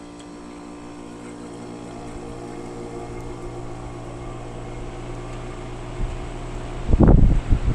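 2011 Bryant Evolution two-stage heat pump's outdoor unit running in defrost: a steady, many-toned compressor hum that grows slowly louder. Near the end, loud gusty rumbles of air buffet the microphone as the outdoor fan comes back on at the end of defrost.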